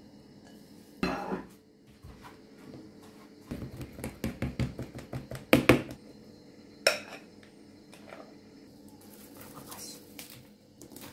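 Kitchen utensils and dishes clinking, knocking and scraping against a metal springform cake pan while a cake is layered. There is a quick run of taps from about three and a half to six seconds, with a single sharp clink a second later.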